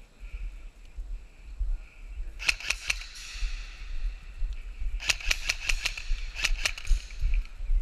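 Airsoft guns firing in three short strings of rapid, sharp shots: one a little over two seconds in, one about five seconds in, and one about a second and a half later.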